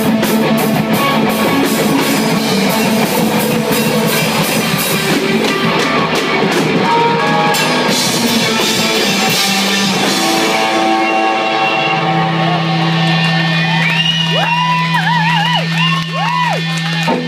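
Loud live rock band playing drums and electric guitar. The drums drop out about ten seconds in, leaving held guitar notes, with notes bent up and down near the end.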